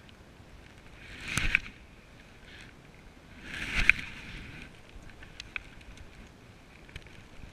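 Spinning rod being cast: two rising swishes of rod and line, about two and a half seconds apart, each ending in a sharp peak, followed by a few faint ticks.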